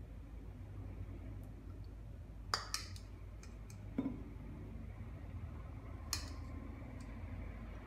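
A metal spoon clicking and scraping against a stainless steel pan and ceramic dish a few times while a soft, wet oat filling is scooped into hollowed tomatoes, over a low steady hum.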